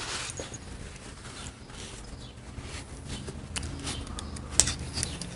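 Small steel cam shims being sorted by hand over a plastic parts tray: light scattered clicks and rustling as the shims are picked up and turned over, with one sharper click about four and a half seconds in.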